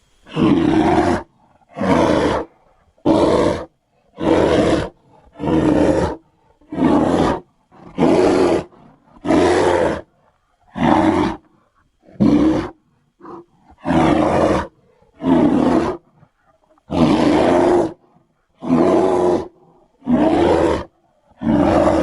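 Creature sound effect of a long-faced bear (wolf bear), made from a cave bear creature's sounds: a series of about sixteen short roars, each under a second long, with brief silences between them.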